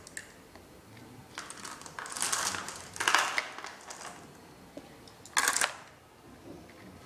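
Bursts of clattering and water noise, three times, as marbles are dropped into a small plastic bottle floating in a tub of water and the bottle is handled; loaded with enough marbles, the bottle sinks.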